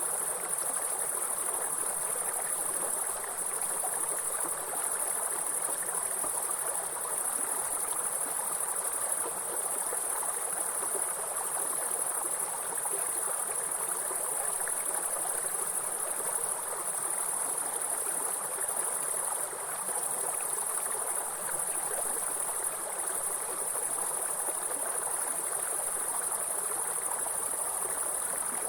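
A steady, very high-pitched chorus of grasshoppers over the even rushing of a stream of running water.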